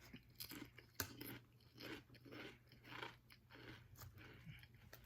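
Faint, steady crunching chews of a hot and spicy Quest protein chip, about two crunches a second.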